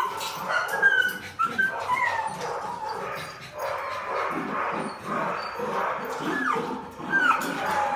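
Puppies play-fighting, giving short high yips and whines.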